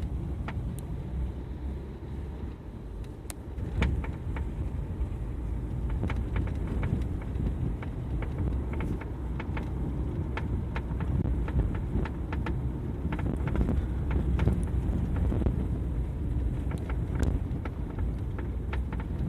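Renault Fluence cabin on the move: a steady low road rumble with many sharp, irregular knocks from the door side of the car, the knock being tracked down.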